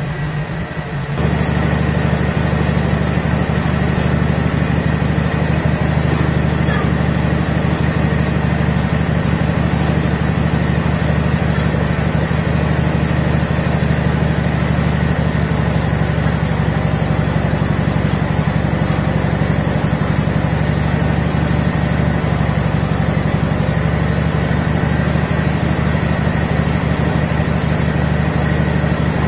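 John Deere 317 garden tractor's Kohler twin-cylinder engine running steadily at low throttle, getting louder about a second in. Its throttle is barely responding, so the engine sits close to idle.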